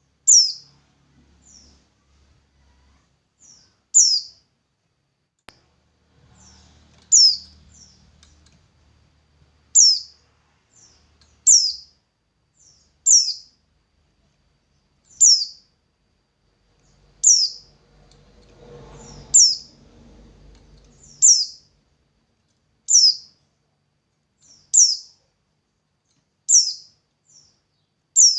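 A single bird repeating a sharp, high call, each one a quick downward-sweeping note, every two seconds or so and often followed by a fainter short note. There is a faint low rumble about two-thirds of the way through.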